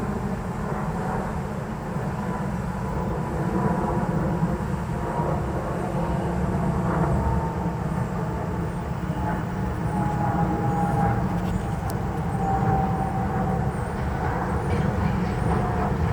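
Tram running on rails: a steady low rumble with a faint whine that slowly drops in pitch.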